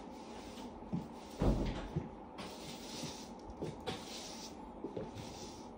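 A person moving about and handling things: several knocks and dull thumps, the loudest about a second and a half in, with rustling in the middle.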